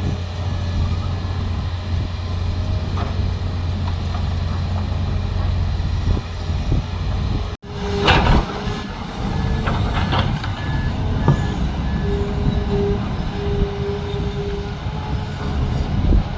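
Heavy construction machinery engines running steadily. After a sudden brief dropout about halfway through, the engine continues with metallic clanks and a beeping reversing alarm.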